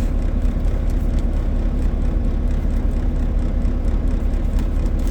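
A semi truck's diesel engine idling steadily, heard from inside the cab, with faint clicks and rustles of packaging being opened.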